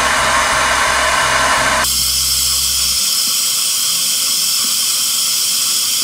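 ReFa hair dryer blowing steadily. The sound of the airflow changes abruptly about two seconds in, and a low hum drops out a second later.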